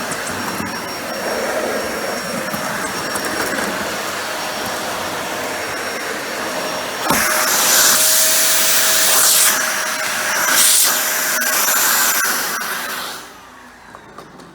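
Dyson Ball Animal 2 upright vacuum running, its suction motor giving a steady hiss. About seven seconds in there is a knock and the sound gets louder and hissier, then it drops away sharply near the end.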